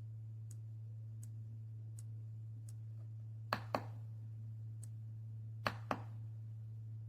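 Two keystrokes on a mechanical keyboard with tactile switches, each a sharp click down and a click back up, about two seconds apart. Faint light ticks come about once every 0.7 seconds over a steady low hum.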